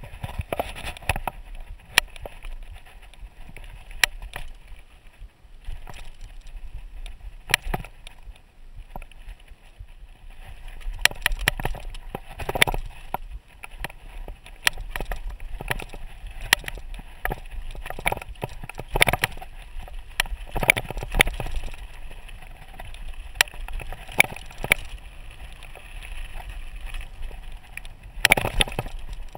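Mountain bike rolling down a rocky gravel singletrack: tyres crunching over loose stones, with irregular sharp clatters and knocks as the bike jolts over rocks.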